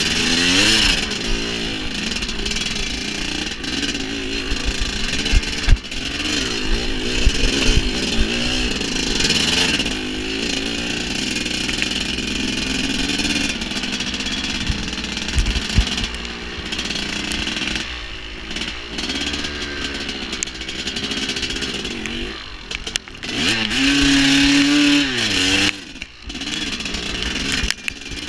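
Dirt bike engine being ridden on a trail, its pitch rising and falling again and again as the throttle opens and closes, with a couple of brief drops and a short held note late on. Occasional knocks ring out over the engine.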